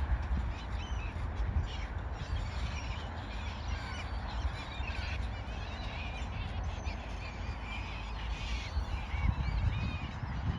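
A flock of seagulls calling, many short squawks overlapping throughout, over a steady low rumble.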